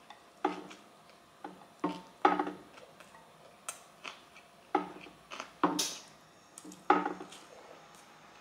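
Close-miked eating: chewing and lip smacks on a mouthful of spicy fire noodles, mixed with wooden chopsticks clicking on the plate as noodles are picked up. A string of short, sharp sounds comes roughly once a second, unevenly spaced.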